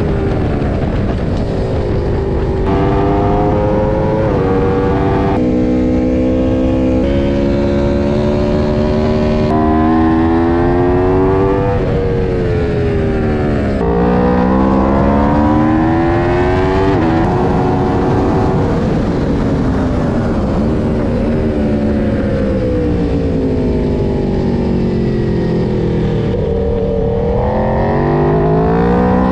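Superbike engine heard from on board at track speed: the revs climb and drop in steps as it shifts up through the gears, fall away for several seconds past the middle as it slows, and climb again near the end, over a constant low rush of wind.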